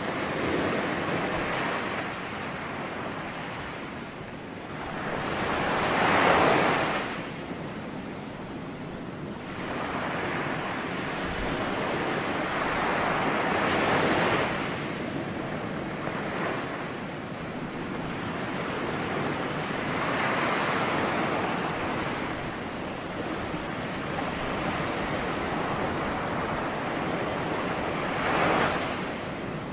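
Ocean waves breaking and washing on a shore, surging in swells every several seconds, the loudest about six seconds in and another sharp one near the end.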